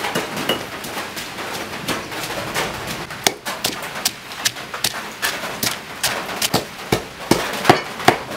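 Pestle pounding in a stone mortar, crushing garlic, shallot and green chilies into a paste: sharp thuds, about two a second.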